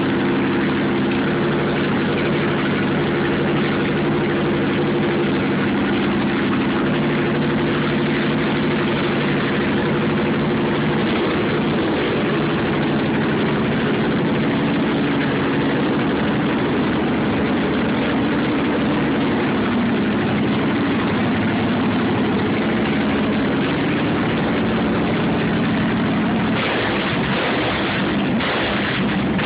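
2009 Victory Hammer S's 106 cubic inch V-twin idling steadily through its remapped 2-into-1 exhaust. To its owner it sounds quieter than he is used to.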